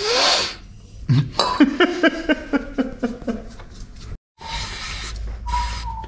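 Aerosol brake cleaner hissing in a short burst at the start and again near the end as it is sprayed onto oily drum brake parts. In between, a run of short pitched squeals, about four a second, is the loudest sound.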